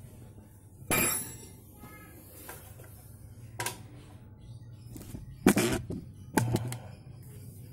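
A few sharp metallic clanks and knocks from tools and parts being handled at a motorcycle engine, the loudest two about a second apart past the middle.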